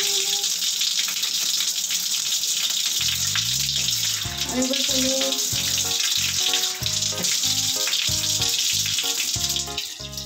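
Water running steadily from a tap, with splashing as a small child's face is washed with a wet hand. Background music with a steady beat comes in about three seconds in.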